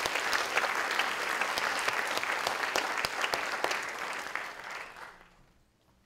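Audience applauding, a dense patter of clapping that fades away near the end.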